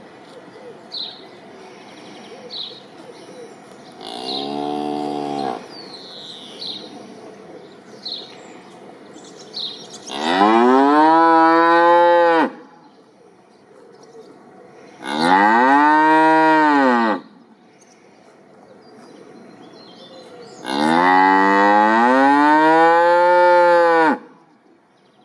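Cow mooing four times: a short low moo about four seconds in, then three long, loud moos, each rising and then falling in pitch. Faint short high chirps repeat in the background during the first part.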